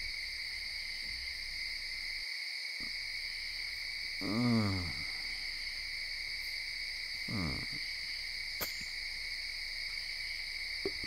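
Steady, high, even chirring of an evening insect chorus. A short pitched call falls in pitch twice, about four and a half seconds in and again about three seconds later.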